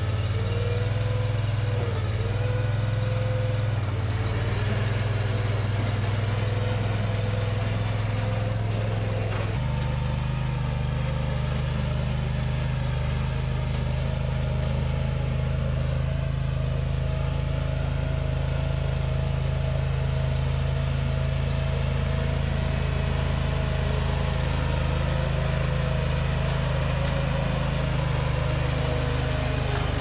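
Engine of a Magnatrac MK2000 mini crawler loader-backhoe running steadily while the machine is driven. The engine note changes abruptly about ten seconds in.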